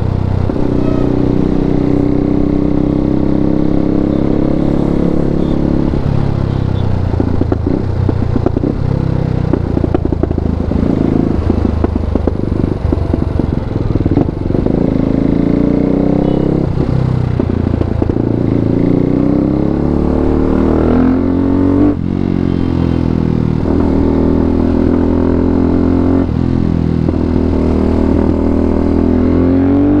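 KTM RC390 single-cylinder engine running through an Akrapovic full-system exhaust while riding, the revs climbing repeatedly through the gears. There is a choppy, crackly stretch in the middle and a sudden drop at a gear change about two-thirds through.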